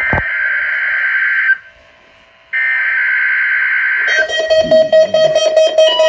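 NOAA weather radio's SAME digital header for the weekly test: two harsh data screeches about a second and a half long, a second apart. About four seconds in, several weather radios set off their alarms together, a layered chorus of steady tones and rapid beeping.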